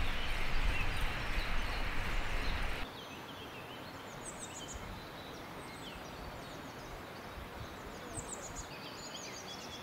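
Low wind rumble on the microphone for about three seconds, cutting off suddenly. Then a quieter outdoor background with small songbirds singing short, high, falling chirps.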